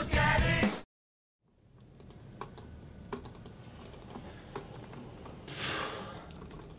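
Music cuts off under a second in. After a short silent gap, fingers tap irregularly on a laptop keyboard, with a brief soft rush of noise near the end.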